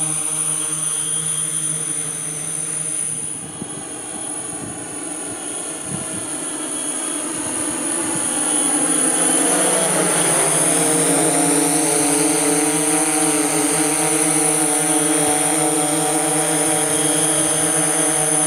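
DJI S1000+ octocopter's eight motors and propellers humming steadily as it flies, several held tones whose pitch shifts a little as it manoeuvres. The hum dips near four seconds in and grows louder from about eight seconds as the drone comes closer.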